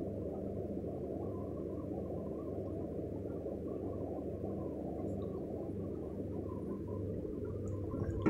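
Steady low hum with a dull rushing noise, as from a household appliance or fan running, with a short sharp click right at the end.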